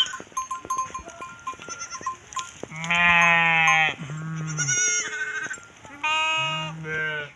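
A flock of sheep or goats bleating: several drawn-out bleats, each lasting about a second, the loudest starting about three seconds in and another near the end, with one higher-pitched bleat between them.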